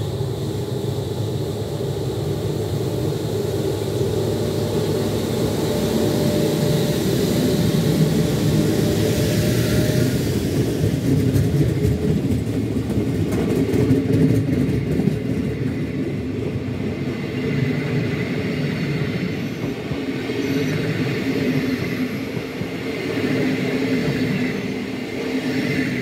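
ÖBB class 1144 electric locomotive pulling away, its traction-motor cooling blowers running with a steady whirring hum, the sound behind its nickname 'Alpine vacuum cleaner'. About halfway through, the passing coaches take over with a rolling rumble and a run of clicks over the rail joints, fading as the train leaves.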